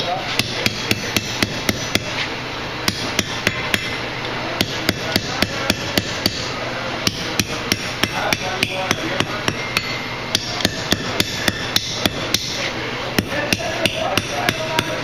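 Hand forging hammer striking a red-hot steel bar on an anvil, about four blows a second in runs of several blows with short pauses between them.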